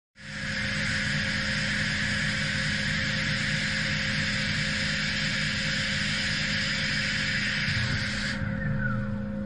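CNC lathe running while finish-turning a steel shaft with coolant spraying: a steady machine hum under an even hiss of coolant and cutting. Near the end the hiss cuts off and a falling whine is heard.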